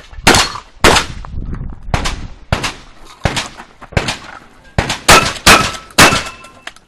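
Shotgun fired in a rapid string, about ten shots in under seven seconds, each a sharp report with a short echoing tail. A faint metallic ring hangs after some of the later shots.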